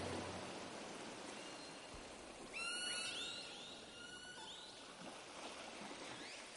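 A bird calling in a quick series of short rising whistled notes about halfway through, with one more rising note near the end, over a faint steady hiss of a forest stream. Background music fades out at the very start.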